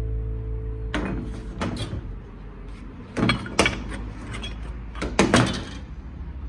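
Short sharp knocks and clanks from metal workpieces being handled, in clusters of two or three about two seconds apart, over the fading tail of guitar music.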